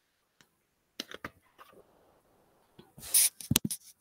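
Pages of a picture book being handled and turned: a few light paper taps, then a loud swish of a page flipping about three seconds in, followed by a couple of sharp clicks.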